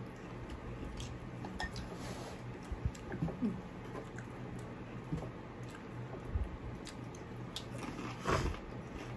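Close-miked chewing and mouth sounds of people eating a rice-and-chicken bowl, with scattered small clicks and a somewhat louder brief sound near the end.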